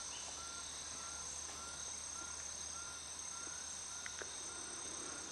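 Steady high-pitched buzzing of insects in the vegetation, with a short repeated chirping note about twice a second through the first part.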